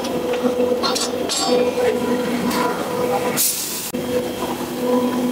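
Scrap wood boards knocking and clattering against the steel firebox of a stainless wood-fired oven as they are loaded in, several knocks in the first second and a half. A short hiss comes about three and a half seconds in, over a steady machine hum.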